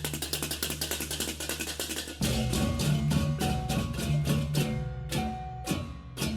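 Balinese gamelan music in baleganjur style, with rapid, even metallic cymbal-like strikes and drums over steady low gong tones. The texture shifts about two seconds in, and near the end the strikes slow and space out.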